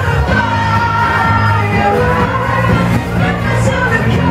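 Live pop-rock band playing loudly through a PA in a crowded room, with amplified singing over the music and shouts from the crowd.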